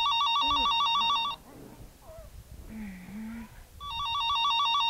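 Electronic telephone ringer warbling, a fast trill between two pitches. The ring cuts off about a second and a half in, and the next ring starts near the end.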